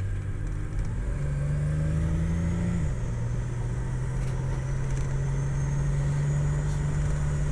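Turbocharged Buick 3800 L36 V6 running under way, heard from inside the car's cabin. The engine note steps up about a second in, drops back near three seconds and then holds steady, with a faint high whine above it.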